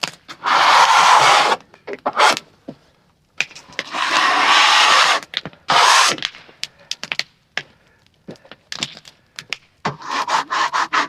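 Wood scraping and rubbing in repeated strokes of a second or two each, with scattered knocks and clicks between them.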